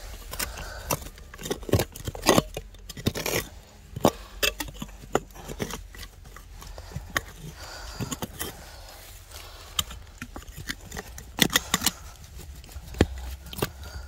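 Digging by hand in stony soil: irregular scrapes and sharp knocks of a tool against earth and stones, in no steady rhythm.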